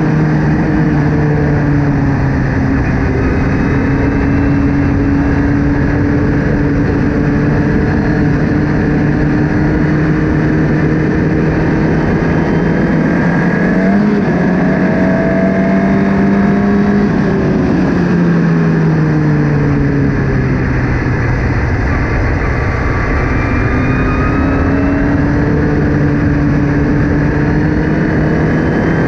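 Formula Ford race car engine running hard at steady revs with a constant rushing noise underneath. About halfway through the revs jump up, then fall away a few seconds later and build again.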